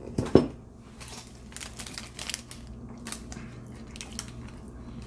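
A sardine box is handled close by, crinkling and crackling in irregular bursts, after a sharp knock about a third of a second in.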